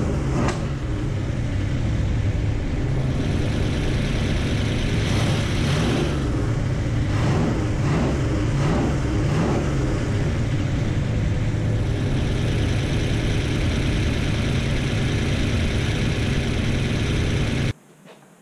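Rebuilt, cammed 351 Cleveland V8 with extractors running at idle while its distributor is turned by hand to add ignition advance. The running stops abruptly near the end.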